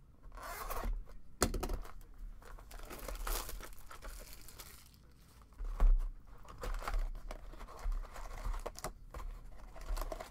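Foil trading-card pack wrappers tearing and crinkling, with a cardboard card box being handled and a sharp thump just before six seconds in.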